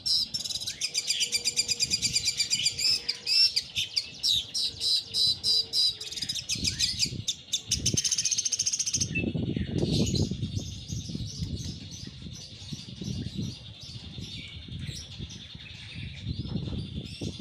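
Long-tailed shrike (cendet) singing: rapid strings of repeated high notes and trills, loudest for the first nine seconds or so, then softer scattered notes over a low noise. The bird has just come through its moult, and its volume is taken not to have recovered yet.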